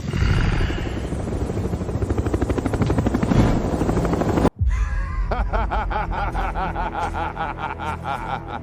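Action-scene sound effects: a fast, pulsing clatter with a heavy low rumble cuts off abruptly about four and a half seconds in. It is followed by a rapidly repeating warbling pattern over a low rumble.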